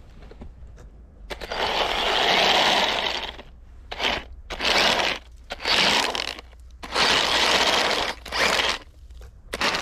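Small RC tank's electric drive churning its 3D-printed plastic snow tracks through deep snow, scraping and crunching in bursts of throttle: one long run of about two seconds, then a string of short bursts about a second apart. The tank is digging into the snow, which the builder puts down to the robot being too wide and having too little ground clearance.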